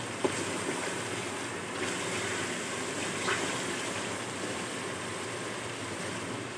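Mutton sizzling as it fries in oil in an open pressure cooker, stirred with a wooden spatula, with a light knock about a quarter second in.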